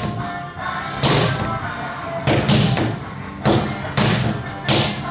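Sledgehammers striking large rubber tractor tyres, several people out of step with one another, giving a dull thud every half second to a second. Background music plays underneath.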